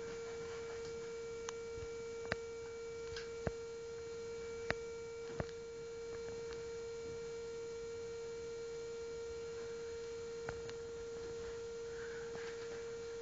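A steady electrical hum at one fixed pitch with faint overtones, and several sharp clicks or taps over it: most fall in the first half, one more comes later.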